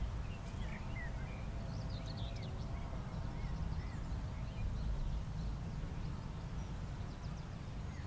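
Outdoor field ambience: scattered short, distant bird chirps over a steady low rumble.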